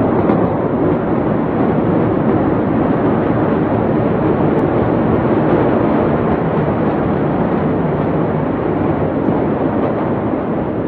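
A loud, steady, noisy roar that holds at much the same level throughout, with no single blast or crack in it.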